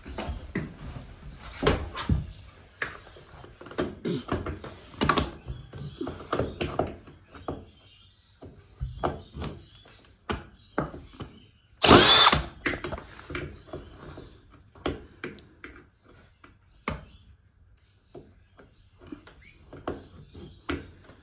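Electric screwdriver running in a short burst about halfway through, backing a screw out of a TV's rear casing, with scattered clicks and knocks of handling before and after.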